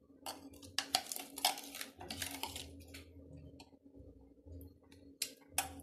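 A metal spoon and plastic bowls being handled: several short clinks and scrapes in the first two seconds or so, a quieter stretch, then two more sharp knocks near the end.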